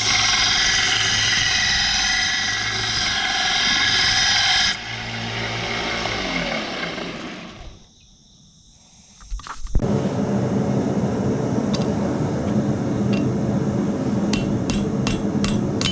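Power tool cutting steel, running loud and steady with a high, many-toned whine, then switched off about five seconds in and spinning down. After a short near-silence, a lower steady machine hum starts abruptly, with a few sharp clicks near the end.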